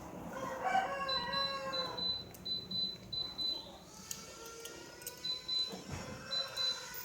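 An LG mini-split air conditioner starting up: faint whines slowly rise in pitch from about four seconds in, under a high tone that comes and goes in short pulses. In the first two seconds a wavering, voice-like sound is the loudest thing.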